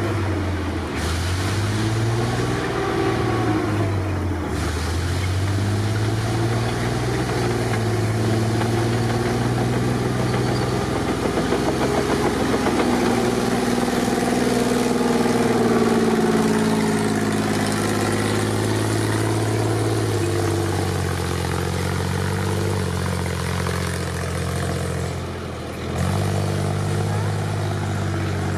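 Tiger II tank's engine running as the tank drives on a dirt track, its pitch shifting up and down with the throttle, with people's voices faintly in the background. The sound jumps abruptly several times where shots are cut together.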